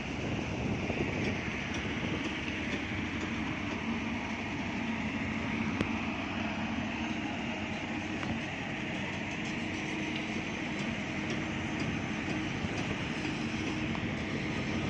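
A wooden fishing boat's engine running steadily at idle, a constant low rumble with a faint ticking over it.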